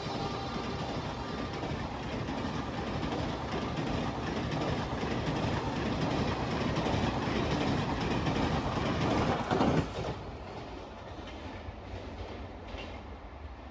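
Howrah Rajdhani Express passenger coaches passing close at high speed, about 135 km/h, with a dense rush of wheel and air noise and wheels clattering over the rail joints. About ten seconds in the sound drops sharply to a fainter rumble.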